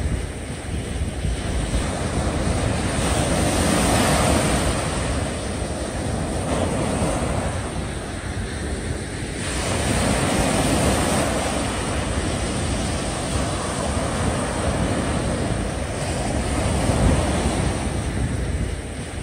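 Sea waves breaking and washing up a sandy beach, the surf swelling and easing every several seconds, with wind buffeting the microphone.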